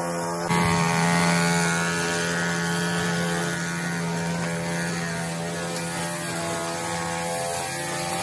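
String trimmer engine running steadily at high speed while cutting grass, a little louder for a moment about half a second in.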